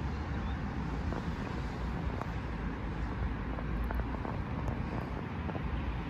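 Wind buffeting the microphone, a steady low rumble, with the hum of street traffic behind it.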